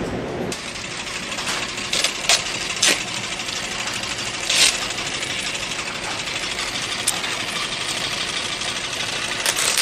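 Electric box fan running steadily, a whooshing rush of air, with a few light knocks over it.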